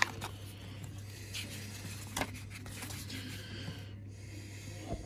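Paper booklet pages being turned by hand: a few short rustles and flicks over a steady low hum.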